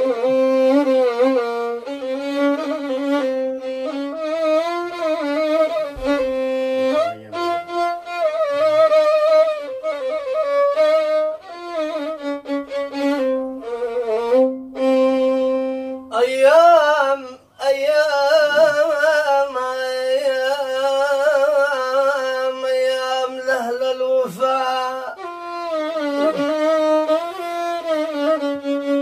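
Solo violin playing an ornamented melody with slides and vibrato. There is a brief break about two-thirds of the way through.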